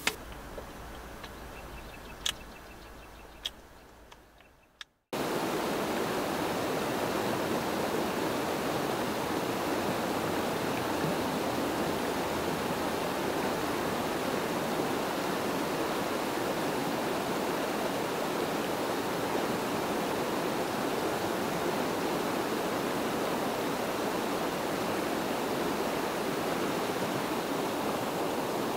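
A few faint clicks from cutlery and food handling while eating, fading out; about five seconds in, a sudden cut to the steady, even rushing of flowing river water.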